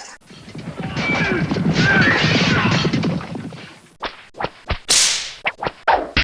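Fight sound effects: a dense, noisy scuffle for about three seconds, then a quick run of sharp punch-like hits with a swoosh in the middle, about a second after the hits begin.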